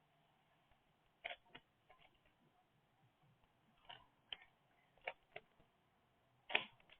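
Rubik's Cube layers being twisted by hand during a scramble: short plastic clicks at irregular spacing, several in quick pairs, the loudest near the end.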